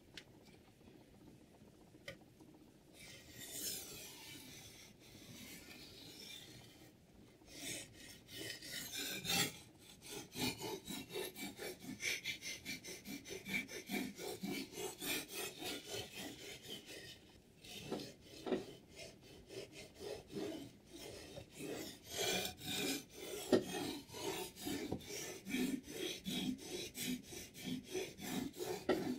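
Water whetstone on a Hapstone T1 sharpener scraping back and forth along a knife blade. It starts faint, then settles from about eight seconds in into a steady rhythm of about two strokes a second.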